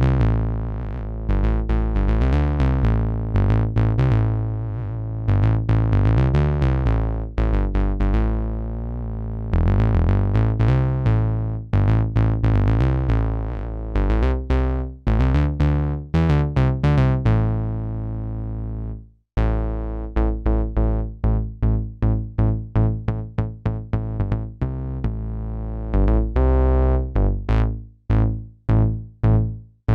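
Novation Bass Station II analog synthesizer playing a heavy, bassy sequenced line of changing notes. About 19 seconds in it drops out briefly, then comes back as short, plucky notes repeated several times a second.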